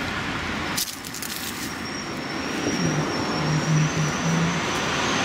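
Steady hum of road traffic, with a short run of sharp clicks about a second in and a thin, high steady whine from about two seconds on.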